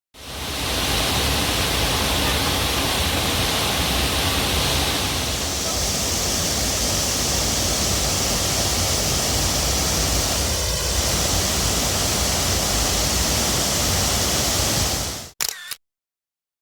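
Waterfall rushing steadily, a loud even wash of falling water that cuts off abruptly near the end.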